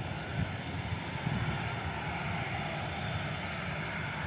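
Boeing 737-800's CFM56-7B turbofan engines running steadily as the jet taxis and turns on the runway: an even jet hiss and hum over an uneven low rumble.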